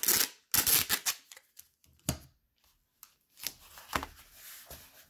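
Hands rubbing and pressing on a corrugated cardboard package sealed with packing tape. There are two loud brushing scrapes in the first second, a knock about two seconds in, then softer rubbing.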